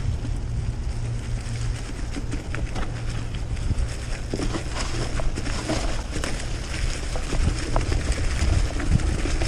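Wind rumbling on the microphone during a bicycle ride, with scattered light clicks and rattles.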